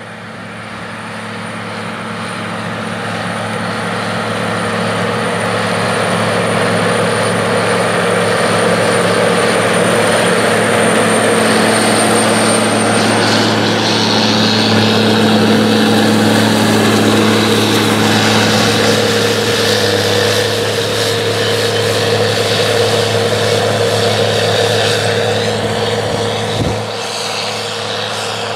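John Deere 9520's big six-cylinder diesel engine running steadily under heavy load as the tractor pulls a tillage implement. It grows louder over the first several seconds, then holds steady.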